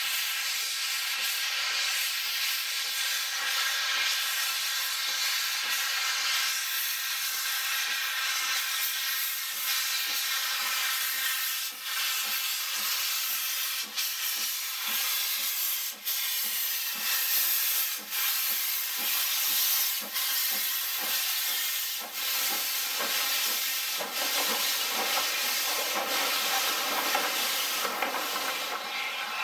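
Steam locomotive starting away with a train, its cylinder drain cocks open: a loud steady hiss of steam over regular exhaust beats.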